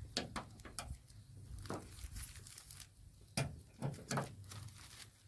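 Scattered light clicks, knocks and rustles of small plastic parts and packaging being handled, the sharpest a few seconds in, over a faint low steady hum.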